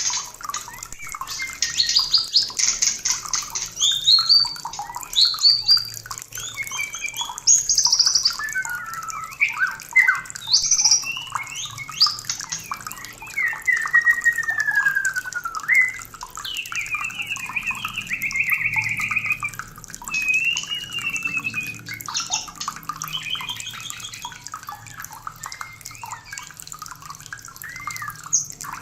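White-rumped shama (murai batu) in mating condition singing a long, varied song of clear whistles, rising and falling glides and buzzy trills, with hardly a pause.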